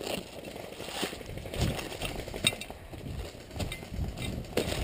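Footsteps and rustling through dry grass, twigs and leaf litter, with irregular crunches and brushing sounds as a person walks through undergrowth.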